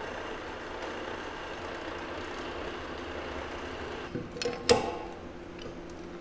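Steady mechanical hum in a machine shop, with a few metal clanks from a chain hoist's chain and hook about two-thirds of the way through, one of them clearly the loudest.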